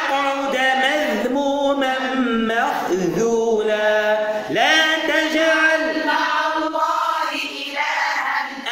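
A man's voice chanting Quranic recitation in melodic tajweed style, with long held notes that bend up and down.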